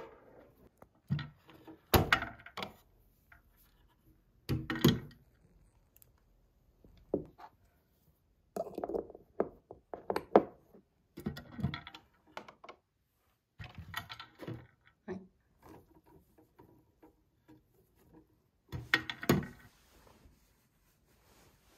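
Handling noises: irregular knocks, thuds and short rustles of objects being picked up and set down, the loudest about two seconds in and again near the end.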